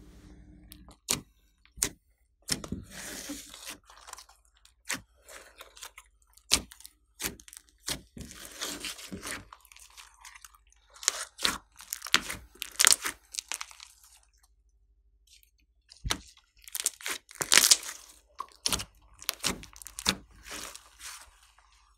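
Slime being squished and mixed by hand, with irregular sticky pops, clicks and crackles and a short pause about two-thirds of the way through.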